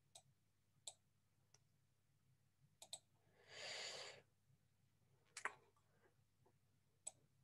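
Near silence broken by a handful of faint, isolated computer-mouse clicks as marks are drawn on screen, and one soft breath about three and a half seconds in.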